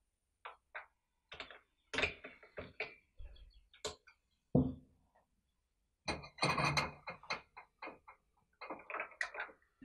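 Hands working on a chainsaw's carburetor and fuel hose: irregular small clicks, knocks and rustles of plastic and metal parts, with pliers used on the hose near the end.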